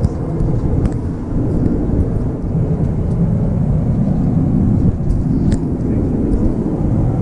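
Steady low rumble of an Airbus A350-900 in flight, heard from inside its lavatory, with a few light clicks.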